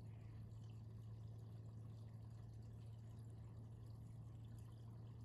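Near silence: a faint steady low hum under a light hiss.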